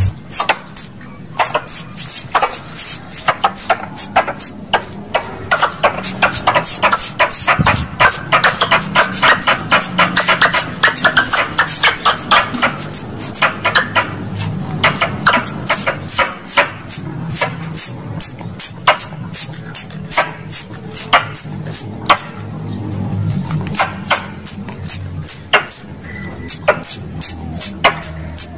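Squirrel calls played as a lure for pest squirrels: a rapid string of sharp, high-pitched chirps, each a quick downward sweep, about three a second with a few brief pauses.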